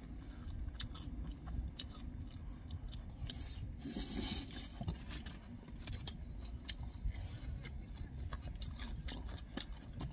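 Close-up eating noises: chewing on tangsuyuk (Korean sweet-and-sour fried pork), with scattered small clicks and scrapes of chopsticks and plastic takeout containers, over a steady low hum. A brief louder rustle comes about four seconds in.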